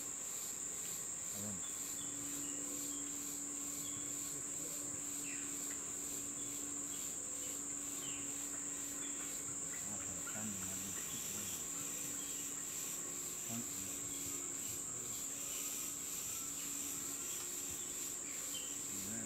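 Tropical rainforest insect chorus: a steady, high-pitched insect drone with a rapidly pulsing buzz above it. Beneath it runs a low steady hum that breaks up into stretches about two thirds of the way through.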